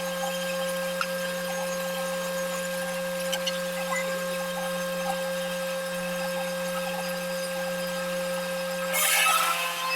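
Woodworking machine motor running with a steady hum, and a brief louder burst of the cutter working into wood about nine seconds in.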